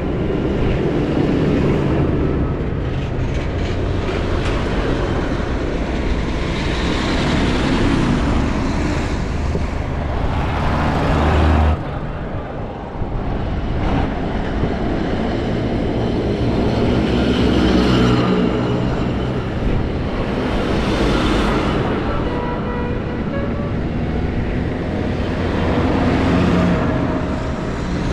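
A procession of diesel farm tractors driving past one after another, engines running and tyres on the road, the sound swelling as each one goes by. The sound breaks off sharply about twelve seconds in and picks up again.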